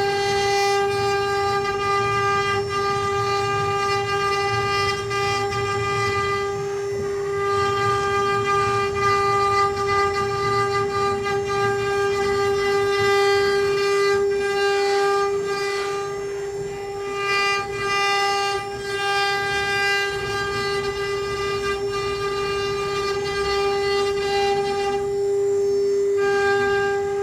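Mini CNC wood-carving router's spindle whining at one steady high pitch while it carves wood, with a low rumble underneath.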